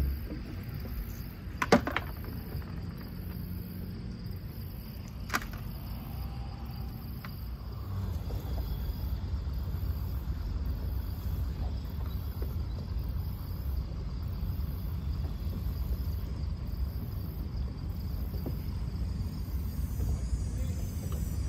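Insects chirping steadily in an even, pulsing rhythm over a low rumble that grows louder about eight seconds in. Two sharp clicks come about two and five seconds in.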